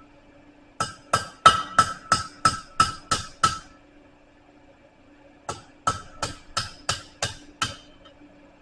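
Blacksmith's hammer striking hot steel bar on the anvil horn to bend it, each blow ringing. The blows come in two runs of about eight and then about seven, roughly three a second, with a pause of about two seconds between.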